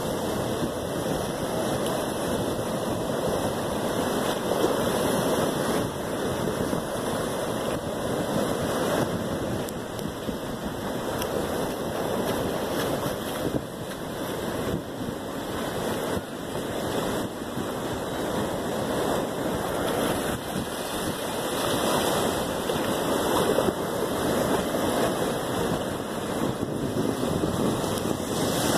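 Ocean surf breaking on a reef and washing over a rocky shoreline shelf: a steady rushing of water that swells and eases slowly.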